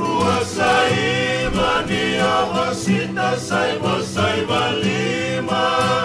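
Male vocal group singing a Fijian song in close harmony over strummed acoustic guitars and ukulele, string-band style.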